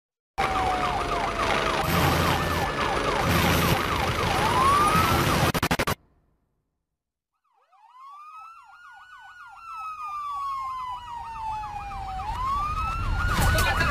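Ambulance sirens: a fast warbling yelp and a slow rising-and-falling wail sounding together. They start loud with a rush of background noise and cut off suddenly about six seconds in. After a short silence they fade back in and grow steadily louder.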